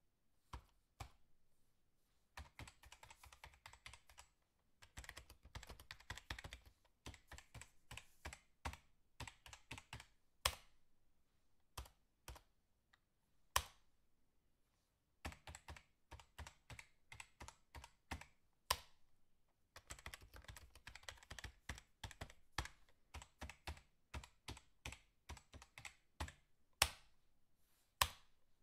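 Irregular runs of light, quick clicks and taps, with a few sharper single clicks standing out.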